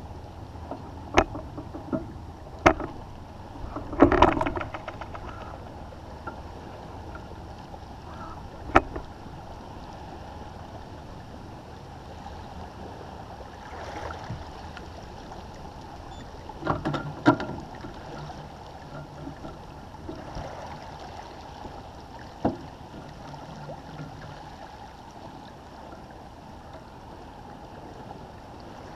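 Water washing steadily along the hull of a Bénéteau First 30 sailboat as it moves through light chop, broken by several sharp knocks, with a quick cluster of them about four seconds in.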